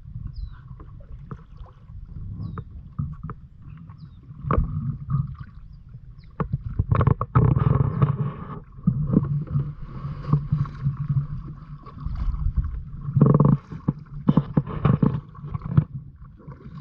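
Kayak paddling: paddle blades dipping and splashing, with irregular knocks against the hull, over a steady low rumble of wind on the microphone.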